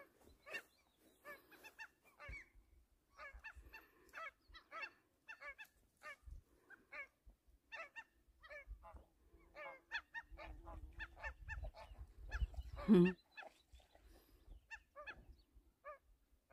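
Flock of geese honking, many short calls in quick succession. Low wind rumble on the microphone about two-thirds of the way through.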